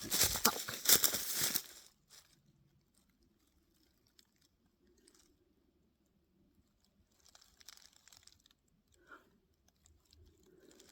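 Footsteps crunching over the ground, loud for the first second and a half and then stopping. A few faint crunches come again later.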